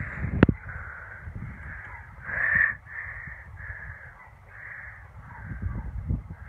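Crows cawing over and over, a harsh call about every half second, with one louder caw about two and a half seconds in. A few low thumps are heard near the start and near the end.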